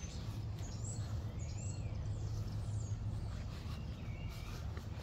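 Wild birds chirping, with several short high chirps and gliding whistles, over a steady low rumble.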